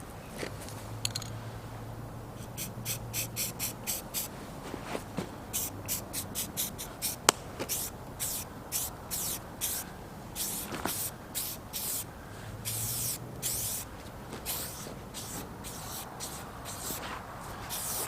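Aerosol spray-paint can spraying in many short hissing spurts, at times several a second, with brief pauses between runs.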